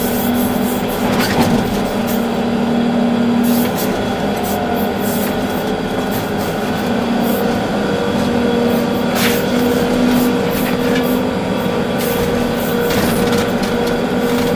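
Volvo EC380D excavator's diesel engine and hydraulics running steadily while working, heard from inside the cab. A constant drone carries hum tones that fade and return as the machine works, with a few sharp knocks.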